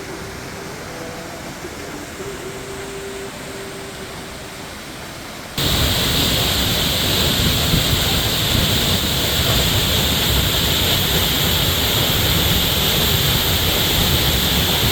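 Waterfall rushing in a steady roar, at first quieter, then suddenly much louder about five and a half seconds in.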